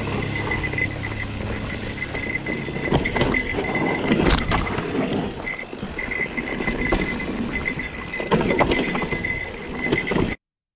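Mountain bike descending a rough dirt trail: steady tyre roll on dirt with frequent rattles and knocks from the bike over roots and rocks. The sound cuts off abruptly near the end.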